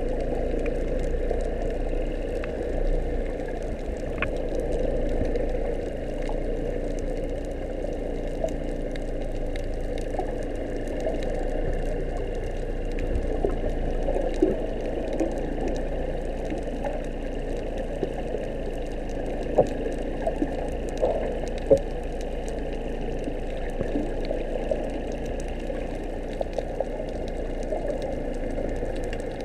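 Underwater ambience picked up by a camera in a waterproof housing: a muffled, steady drone of water with scattered short clicks and ticks.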